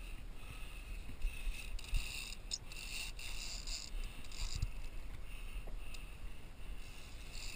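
Conventional big-game fishing reel being cranked against the load of a hooked billfish, giving scratchy, scraping patches over a steady low rumble.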